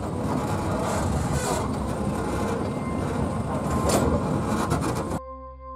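Puffing Billy narrow-gauge steam train carriage running slowly along the track: a steady rumble of wheels on rails with a couple of sharper knocks. About five seconds in it cuts off suddenly to soft ambient music with steady held tones.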